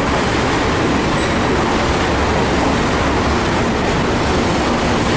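Container wagons of a broad-gauge freight train rolling past close by: a steady rumble of wheels on rail.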